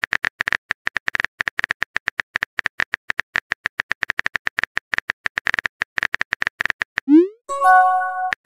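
Rapid, irregular keyboard-tap sound effects from a texting app, several clicks a second, as a message is typed. About seven seconds in the tapping stops for a short rising bloop, then a brief chime of several steady tones as the message is sent. The tapping starts again just at the end.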